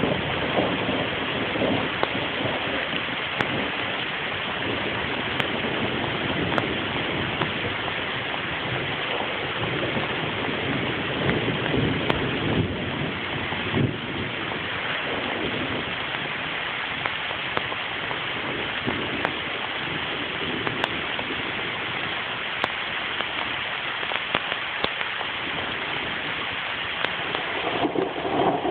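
Steady rain from a thunderstorm, falling hard and evenly throughout.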